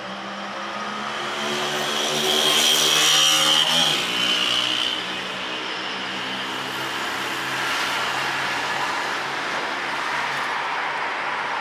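A motor vehicle passing on the street below, its engine tone swelling and then dropping in pitch as it goes by about four seconds in, followed by a steadier, quieter engine hum and general traffic noise.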